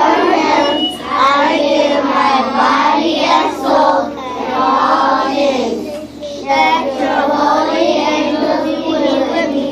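A group of young children reciting a memorized prayer aloud in unison, phrase by phrase with short breaks between.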